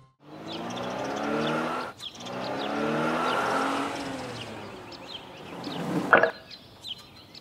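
Cartoon toy truck's engine sound effect running in two swells, its pitch shifting a little, with birds chirping throughout. A short, sharp sound effect rings out about six seconds in.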